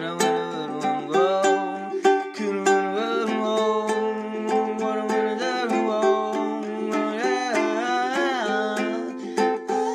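Ukulele strummed in a steady rhythm, with a sliding, wavering melody line over the chords.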